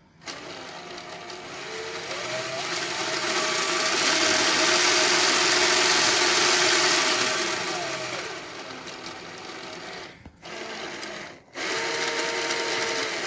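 Power drill spinning a Lego V12 engine model, its motor whine rising as it speeds up about two seconds in and falling again around eight seconds, over the clatter of the plastic gears and pistons. It stops at about ten seconds, starts briefly, then runs again near the end.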